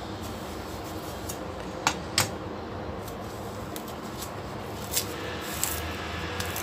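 Kitchen knife knocking on a plastic cutting board while a banana is cut and peeled by hand: two sharp clicks close together about two seconds in and another near five seconds, over steady background noise.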